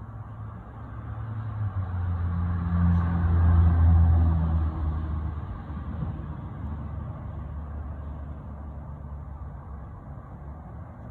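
A low engine hum that swells to its loudest about three to four seconds in, then fades back to a weaker steady drone.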